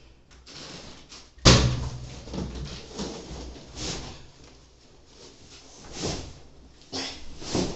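Handling noises: a heavy thump about one and a half seconds in, then several shorter swishing, rustling sounds spaced a second or so apart.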